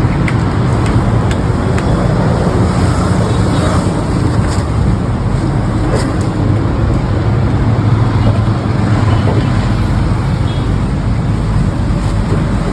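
Industrial laundry machinery running with a steady low rumble and hum, with a few faint clicks over it.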